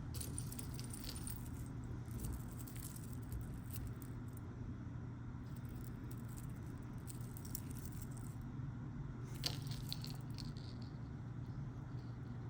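Faint, scattered clinks and rattles of costume jewelry pieces being handled and sorted by hand, over a steady low hum.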